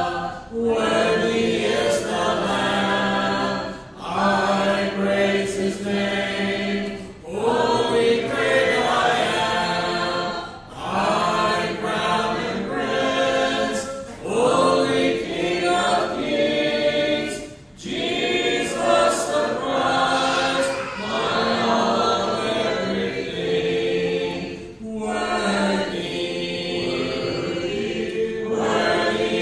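Church congregation singing a hymn a cappella, led by a song leader, in sung lines of about three to four seconds with short breaks between them.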